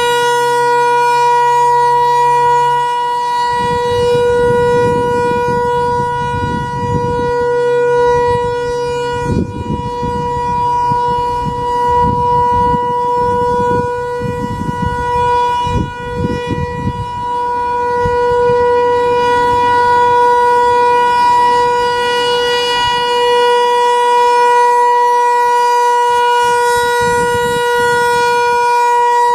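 American Signal ASC T-128 outdoor warning siren sounding the steady Alert signal: one loud, unbroken tone held at a constant pitch, with a strong overtone an octave above.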